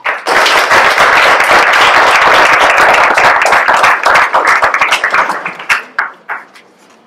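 Audience applauding, starting at once and full, then thinning after about five seconds into a few scattered claps.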